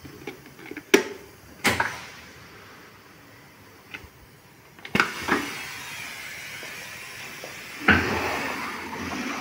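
URBAN FAS 330 table being switched on at its control panel: two loud clacks of the rotary main switch about a second in, then a small click of the push-button. About five seconds in the machine starts with a sharp clack and a steady hiss, and a second loud clack comes near the end.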